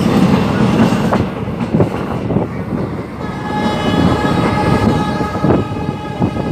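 Passenger train running, heard from an open coach door: a steady rumble of wheels on rail with sharp clicks over the rail joints. About halfway through, the locomotive's horn starts a long blast that is held.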